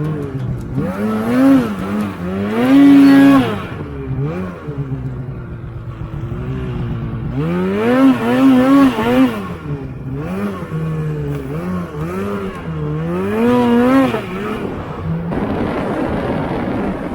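Snowmobile engine revving up and down as it is ridden, its pitch climbing and falling in three loud surges with quicker throttle wobbles between.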